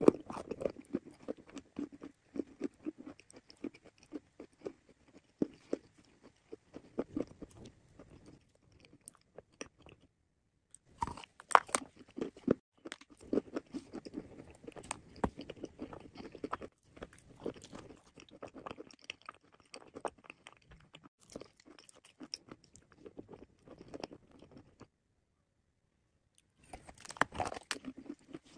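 Dry orange clay being bitten and chewed: a loud crisp crunch with each bite, at the start, about 11 seconds in and near the end, and steady crackly chewing in between. The chewing breaks off into silence twice.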